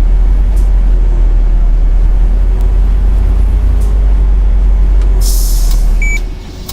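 Double-decker bus heard from inside: a loud, steady low engine and road rumble, then about five seconds in a short sharp hiss of compressed air, a brief high beep, and the rumble drops away.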